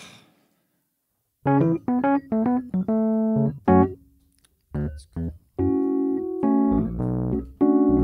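Electric piano playing the opening of a song. After a second or so of quiet, short chords and single notes come in about a second and a half in, break off briefly in the middle, then return as longer held chords.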